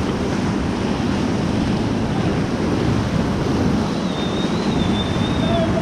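Steady rush of white-water river rapids, with wind buffeting the microphone.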